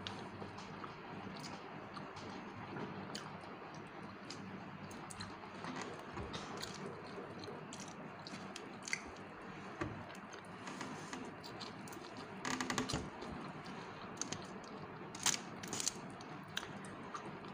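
A person eating with her fingers from a foil tray: faint chewing and small scattered clicks of food handling, with a quick run of clicks a little past the middle, over a steady low hum.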